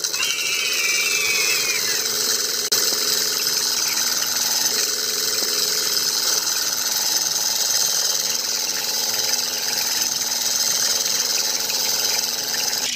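A small motor running steadily with a busy mechanical whirr, with a brief high whine falling in pitch in the first two seconds.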